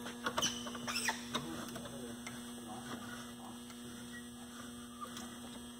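Steady electrical hum, with a few light clicks and creaks in the first second and a half as the threaded pressure screw of a wooden wood-bending press is turned down by hand.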